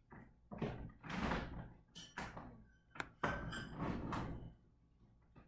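Several sharp knocks and thuds, with swells of rustling, scraping noise between them.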